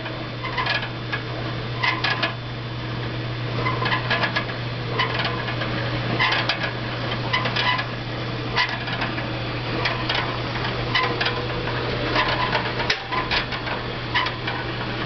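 Electric drill turning a wire-mesh roasting cage on a rod over a barbecue grill: a steady motor hum with metal clinking and rattling from the cage and rod about once a second as it rotates.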